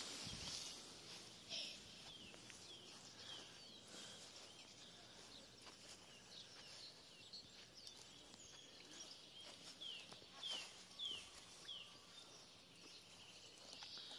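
Quiet outdoor ambience with a bird calling: short chirps that each fall in pitch, repeated many times in a row, most of them in the middle stretch.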